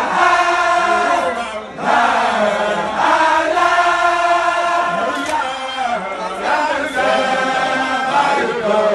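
Many voices of Baye Fall disciples chanting together in unison, a religious zikr, in repeated phrases of a second or two with short breaks between them.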